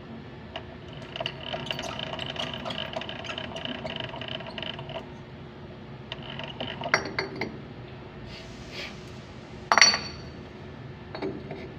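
Metal clinking in a workshop: a steady machine hum for a few seconds, scattered clicks, a few sharp clinks, then one loud metallic clink that rings briefly near the end.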